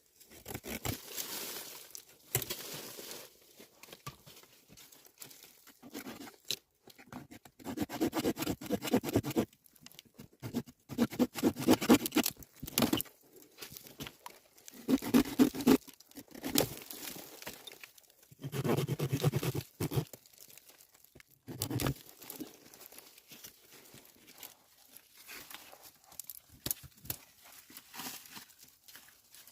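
Crunching, tearing and rustling sounds in irregular bursts of a second or two, broken by short pauses.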